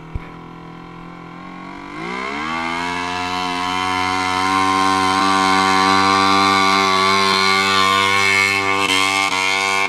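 A sharp click just at the start. Then a small garden tractor's engine at a tractor pull revs up, climbing in pitch about two seconds in, and holds high, steady revs at full throttle as it drags a weight sled down the track, growing louder as it comes closer.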